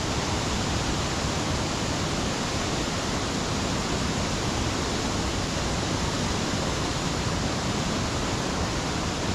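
Steady rushing of a small waterfall, a burn dropping 15 to 20 feet in a fanned-out horsetail fall.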